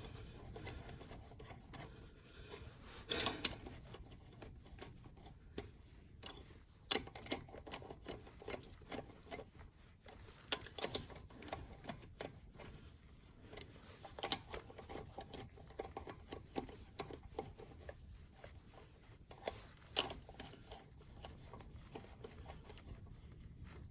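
Hand tools and metal parts clicking and clinking in short irregular runs while working on a locking hub's bolts, with one sharper knock about three seconds in.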